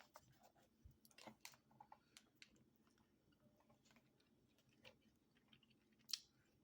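Near silence with faint, scattered mouth clicks and smacks of someone chewing a watermelon Gushers fruit snack coated in chamoy and chili powder, with a sharper click about six seconds in.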